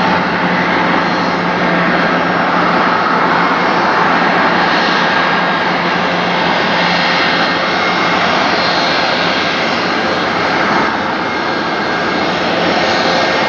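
Twin rear-mounted Rolls-Royce BR715 turbofans of a Boeing 717-200 running at taxi power: a steady jet engine noise with a whine held on several steady tones.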